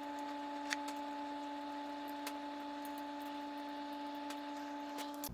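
A few faint, scattered clicks and taps of small plastic extruder parts and a screw being handled during assembly, over a steady hum.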